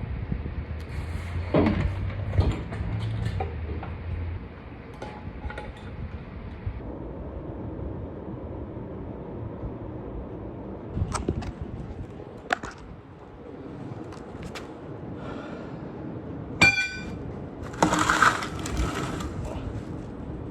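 Scattered metal knocks, clicks and clanks of hand tools and parts during work on a truck's transmission, with a low hum that stops about four seconds in. Near the end comes one sharp metallic strike that rings briefly, then a clatter lasting about a second.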